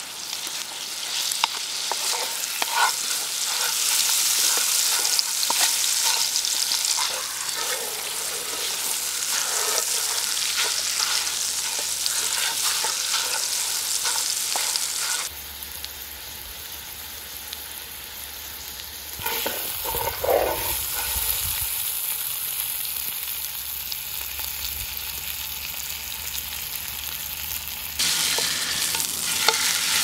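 Bone-in rib-eye steak sizzling and crackling in hot fat in a frying pan, with a wooden spatula pressing and scraping it against the pan. About halfway through the sizzle turns quieter for several seconds, then grows louder again near the end.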